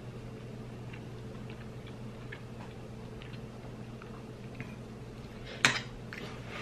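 A person chewing a mouthful of chicken, quiet mouth sounds and faint scattered clicks over a steady low hum. About five and a half seconds in comes one sharp clink of cutlery on a plate, the loudest sound.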